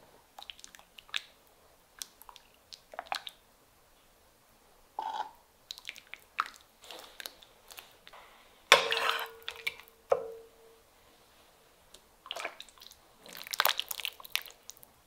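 A metal ladle working in a steel pot of meatball stew: soft slops and small clinks, then about nine seconds in one loud clank of the ladle against the pot that rings on briefly. Near the end, thick stew with meatballs is poured and splashed from the ladle into a metal bowl.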